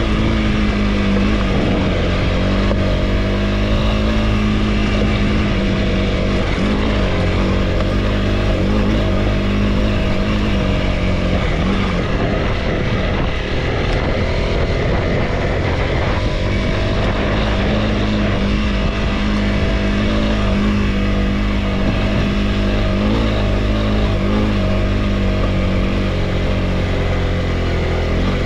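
Honda CRF300L single-cylinder motorcycle engine running steadily while being ridden, its pitch dipping and recovering a few times as the throttle changes.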